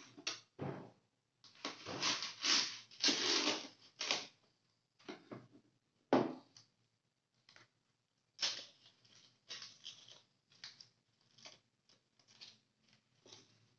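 Food being prepared by hand on a cutting board: irregular scraping and rustling strokes, a dense run of longer ones in the first few seconds and a sharp one about six seconds in, then shorter strokes about two a second.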